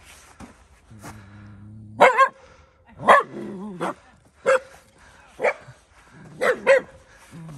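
A small black-and-tan dog barking in a string of sharp, short barks as it runs and jumps about, about eight in all, the loudest a quick double bark about two seconds in. Low drawn-out growls lead into the barking.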